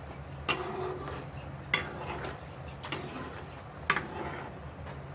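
A utensil clinking sharply against a cooking pot four times, about a second apart, during stirring, over a low steady hum.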